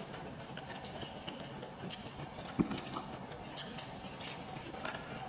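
Eating sounds: chewing with small wet mouth clicks, and chopsticks picking at food in a paper takeaway box. There is one louder thump about halfway through.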